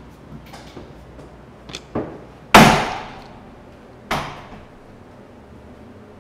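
A few light knocks, then two sharp bangs. The loudest comes about two and a half seconds in and dies away over about half a second; another follows about four seconds in.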